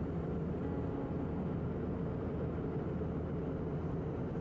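Steady cabin drone of an Airbus A319 in cruise flight, a low, even rumble of engine and airflow noise.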